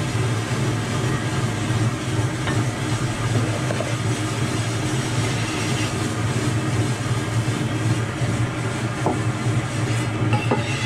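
Motor-driven horizontal lapping wheel turning steadily with natural whetstone blocks riding on it for rough polishing: a continuous low hum with an even grinding rasp over it.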